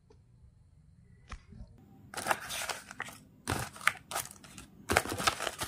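Paper manual and plastic wrapping rustling and crinkling as they are handled, starting about two seconds in after a near-quiet start.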